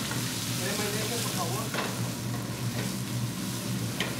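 Vegetables sizzling and frying in a hot pan, an even hiss with a steady low hum underneath.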